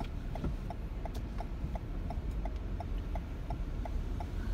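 Car turn-signal indicator clicking at an even rate of about four clicks a second, over the low rumble of the car's engine and road noise heard inside the cabin.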